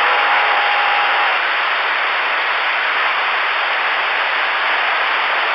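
CB radio receiver static with the squelch open: a steady, even hiss between transmissions. A faint steady tone sits in the hiss for about the first second and then stops.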